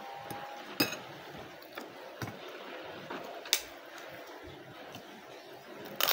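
Eating sounds: a few sharp, crisp cracks as a pink kerupuk cracker is snapped and bitten, the clearest about three and a half seconds in and another just at the end, over a quiet background.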